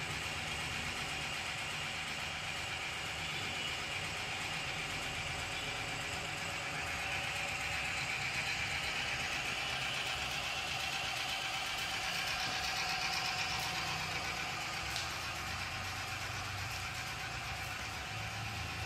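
Bottle belt conveyor running: its drive motor and belt make a steady mechanical running noise, with one faint click about fifteen seconds in.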